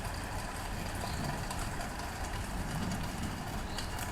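Steady rain falling: an even hiss of many small drop ticks, with a low rumble underneath.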